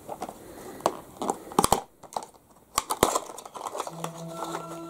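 Small cardboard box being handled and opened: a string of sharp clicks and scrapes as the flaps and packing are worked, with a short pause in the middle. Faint background music comes in near the end.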